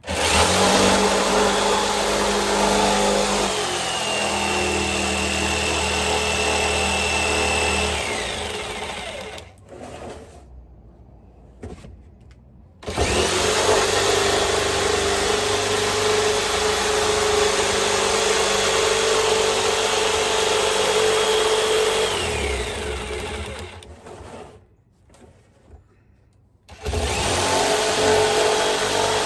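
Jigsaw cutting through the top of a 55-gallon barrel, running in three long bursts and stopping twice for a few seconds, its pitch falling away as it winds down each time.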